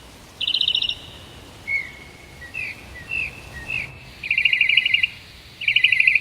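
A songbird singing: a fast trill of repeated notes, then four short slurred whistles spaced apart, then two more fast trills in the second half.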